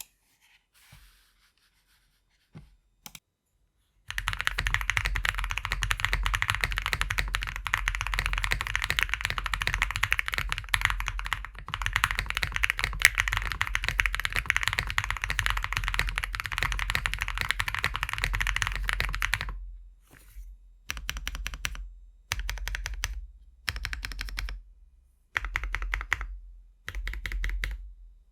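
Typing on a custom mechanical keyboard with lubed KFA Pink Robin linear switches, PBT keycaps, an aluminium plate and a foam-filled 1.2 mm PCB. About four seconds in, fast steady typing starts and runs for some fifteen seconds, then it turns into short bursts of keystrokes with brief pauses between them.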